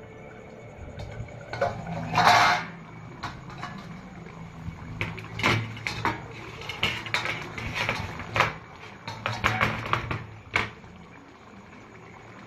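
Steel lid taken off a pan of simmering dal, the loudest sound being a brief noisy clatter about two seconds in, then scattered clinks and scrapes of a metal spatula against the steel pan.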